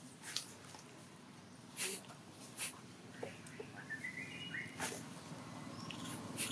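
Long-tailed macaques making about five short, breathy huffs spread over several seconds, the last one just as a young macaque's mouth gapes open.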